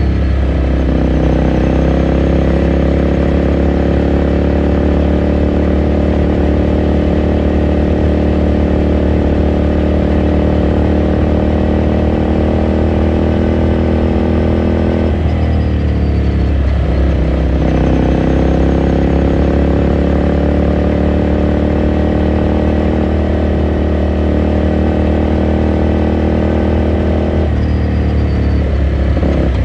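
Ducati Scrambler Sixty2's 399 cc air-cooled V-twin pulling under load while riding, its note slowly rising with the revs. The revs drop with a gear change about halfway through and again near the end.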